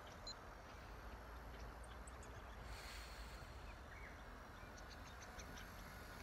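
Faint outdoor ambience: a steady low wind rumble on the microphone, with a few faint high chirps and a brief faint hiss about three seconds in.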